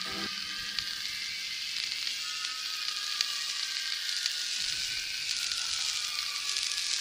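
Steady crackling hiss, with a faint thin tone gliding slowly down in pitch through the middle.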